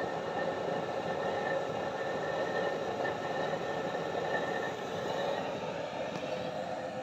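Heavy-duty waste-oil stove burner with a 56-hole burner head, burning with a steady rushing flame noise and a faint steady whine; it gets a little quieter about five or six seconds in.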